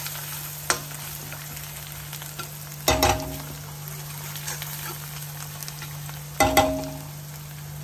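Spice paste sizzling in hot oil in a metal kadhai while a spatula stirs and scrapes it. Twice, about three seconds in and again about six and a half seconds in, the spatula knocks against the pan, which rings briefly.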